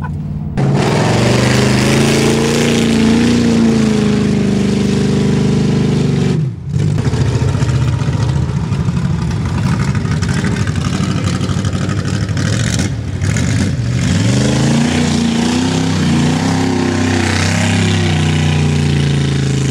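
Off-road vehicle engine revving hard, its pitch climbing and falling repeatedly. The sound breaks off abruptly a few times and picks up again.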